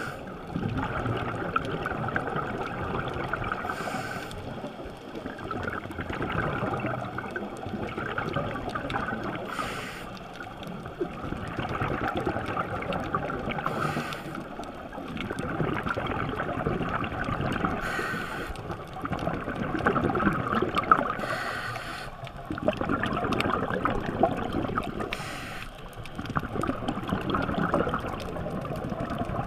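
Scuba regulator breathing recorded underwater: a rushing, gurgling stream of exhaled bubbles that swells and fades about every four seconds, with a short hiss at the turn of each breath.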